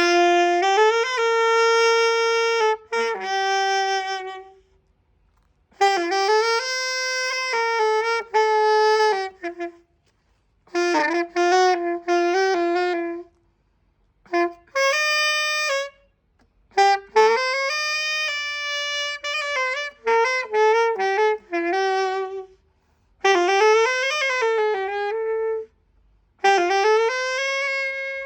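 A saxophone played in about seven short melodic phrases with brief pauses between them, a new instrument being tried out to hear how it sounds, its neck not yet properly seated.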